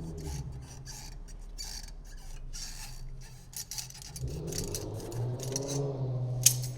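Hand tools clicking and scraping on metal while the spring clamp is worked off a steering rack boot, a series of short clicks and scrapes. A low hum joins about four seconds in.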